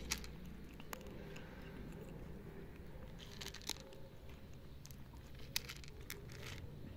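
Cat crunching dry kibble: scattered crisp crunches, bunched together about three and a half seconds in and again between five and a half and six and a half seconds.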